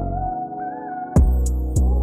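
Background music: sustained synth tones with a short melody line, joined about a second in by deep, heavy bass-drum beats.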